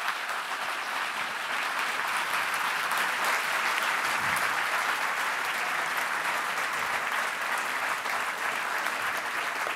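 Audience applauding, the clapping swelling a little over the first seconds and then holding steady.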